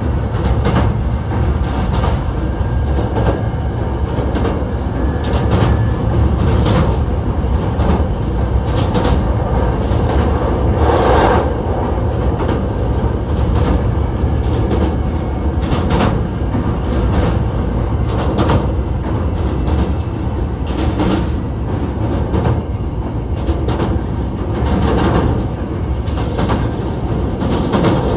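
Hankyu 1300 series electric train running at speed, heard from inside the car: a steady rumble of wheels on rail with repeated clacks as the wheels cross rail joints. There is a faint steady whine from its Toyo IGBT traction inverter.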